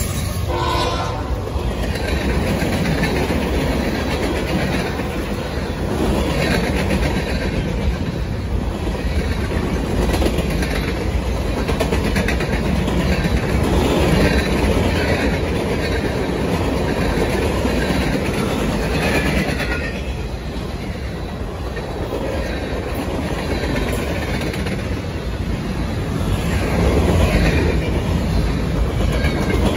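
Freight train passing close by: the steady rumble of the locomotives and then the freight cars rolling past, with the clickety-clack of wheels over rail joints.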